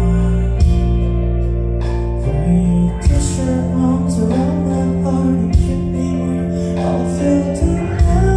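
Live band performing a song with singing: guitars, keyboards and drums over a heavy bass, heard from within the crowd, with sharp hits about three, five and a half and eight seconds in.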